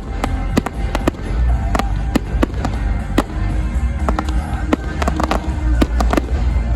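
Fireworks display: an irregular rapid series of sharp bangs and reports over a continuous low rumble, with music playing underneath.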